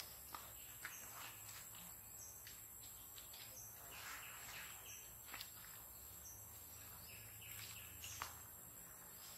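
Faint forest ambience: a steady high-pitched insect drone with scattered short rustles and crackles.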